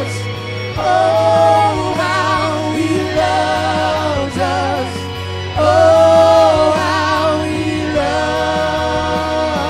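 Live worship music: wordless sung phrases of long held notes with wavering ornaments, over a steady low bass note.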